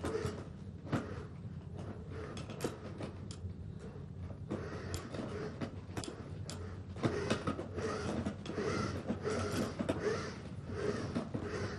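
Computer-controlled earthquake-simulator platform swaying with a person seated on it, giving mechanical creaks and irregular clicks and knocks that grow busier and louder about halfway through as the replayed shaking of the magnitude 9 earthquake builds.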